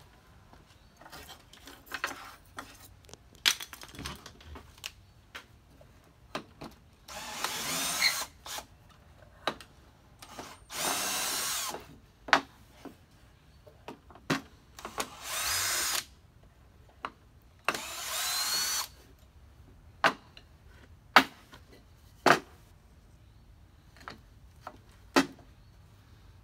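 Cordless drill running in four short bursts of about a second each, between many sharp knocks and clicks of wood blocks and tools being handled on the jig.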